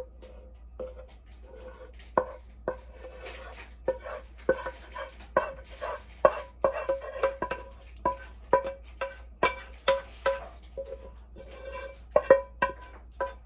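A utensil scraping and knocking against a metal saucepan as cream sauce is scraped out onto pasta. The knocks come about two or three a second, busiest in the middle, and each one leaves the pan ringing at the same pitch.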